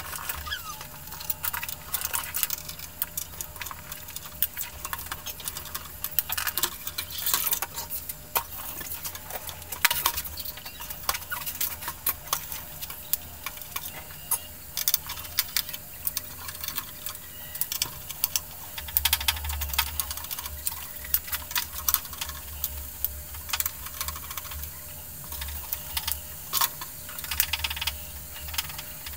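Irregular clicks, taps and light clinks of computer hardware and screws being handled during PC assembly, over a steady low hum that grows stronger about two-thirds of the way through.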